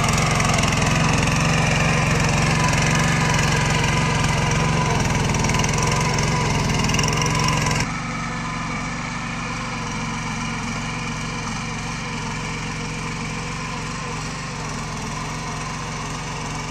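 Walk-behind power tiller's small engine running steadily under load while its rotary tines work the soil. The sound drops noticeably in level about eight seconds in, when the tiller is farther off, and carries on steadily.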